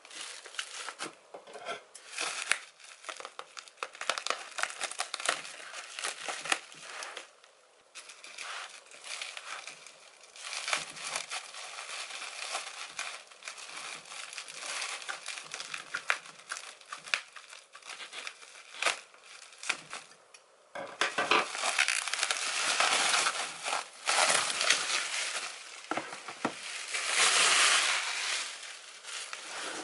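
Bubble wrap being cut with scissors and pulled off a cardboard box: a run of plastic crinkling and rustling with small crackles and snips. It grows louder and denser for the last several seconds as the wrap is stripped away.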